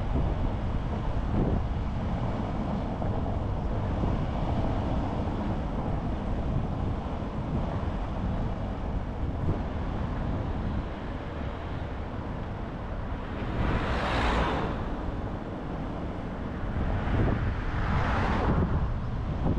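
Steady road and wind noise from a car being driven. Two louder whooshes of passing traffic come about two-thirds of the way in and again near the end.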